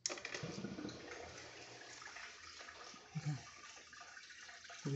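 Fluval 306 canister filter just switched on: water rushing out of its return into the aquarium, a steady splashing hiss that comes on suddenly at the start. A brief low sound is heard a little after three seconds in.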